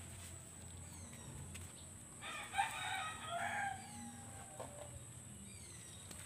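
A rooster crowing once, about two seconds in, for about a second and a half.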